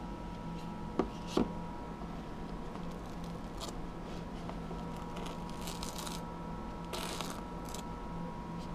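Two sharp clicks close together, then short bursts of rustling and scraping as small objects are handled, over a steady electrical hum.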